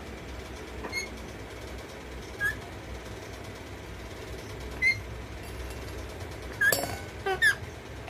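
Short, high squeaks every second or two, with a louder cluster of them near the end, over a steady low hum, as an Alexandrine parakeet plays with a steel drinking tumbler on a concrete floor and knocks it over.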